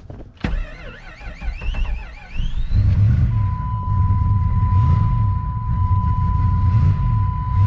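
1997 Jeep Grand Cherokee's 318 V8 cranking on the starter with a wavering, rising whine for about two seconds. It catches and runs rough after sitting for months, struggling to stay running. A steady high-pitched warning tone sounds from about three seconds in.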